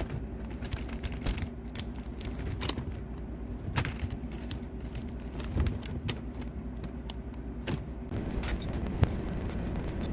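Scattered sharp clicks and knocks of plumbing parts and tools being handled during a dishwasher hook-up, over a steady low hum.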